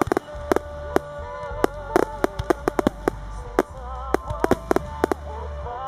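Fireworks bursting overhead, many sharp bangs several a second, over music with held melody notes and a deep bass line.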